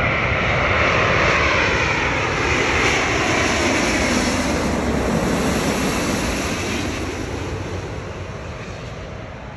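Airbus A350-900's Rolls-Royce Trent XWB turbofans as the airliner passes low overhead on final approach: a loud jet rush with a whine that glides down in pitch, fading from about seven seconds in as the aircraft moves away toward the runway.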